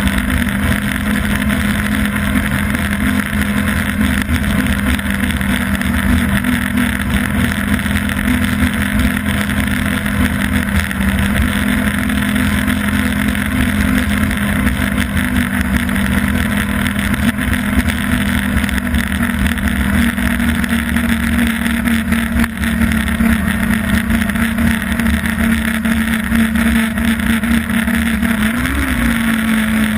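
Yamaha Apex snowmobile's four-stroke four-cylinder engine running steadily at trail speed, with a brief rise and fall in pitch near the end.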